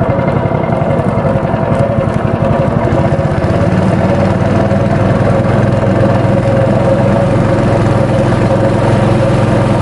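Small motorboat's engine running steadily as the boat travels across the water, its low note growing stronger about four seconds in.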